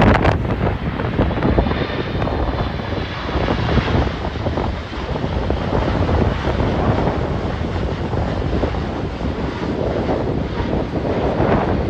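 Boeing 787-9 jet engines on landing approach, a steady rumble with a faint high whine as the airliner passes, while gusts of wind buffet the microphone.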